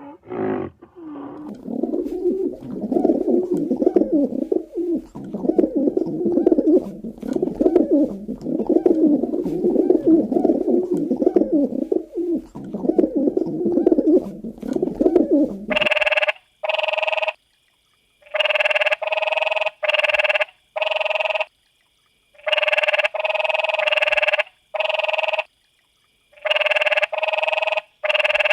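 Animal calls: a continuous low, warbling cooing for about sixteen seconds, then a string of short calls of about half a second each, separated by brief gaps.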